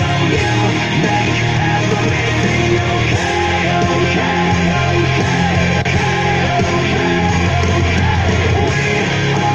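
Rock/metal song with singing and guitar played loudly through a speaker under a bass test, with a strong, steady bass line.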